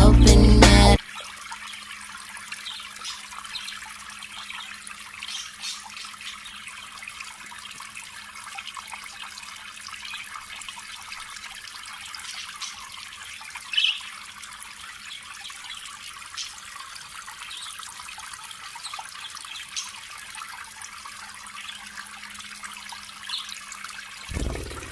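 Steady hiss like running or trickling water, with a faint steady hum underneath and a few brief high-pitched sounds, one louder about fourteen seconds in. Music cuts off about a second in.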